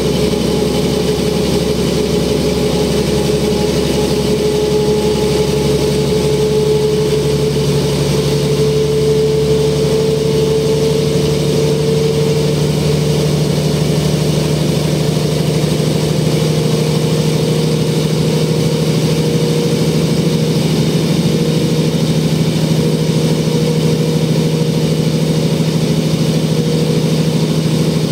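Mercedes OM447h diesel engine and ZF 5HP-500 automatic gearbox of a 1994 Mercedes O405N bus running under way, heard from inside the passenger cabin. A whine rises slowly in pitch over the first dozen seconds as the bus gathers speed, then holds steady.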